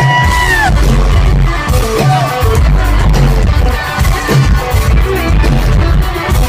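Live country-pop band playing loud through concert speakers, with heavy bass and drums and a held note that slides down in the first second.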